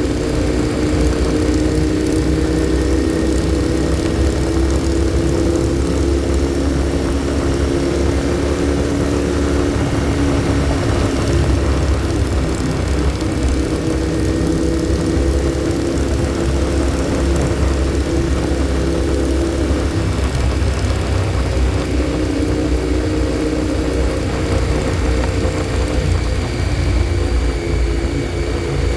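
Motorcycle engine running steadily at cruising speed on the open road, its pitch holding nearly level, heard from the rider's seat over a constant low wind rumble.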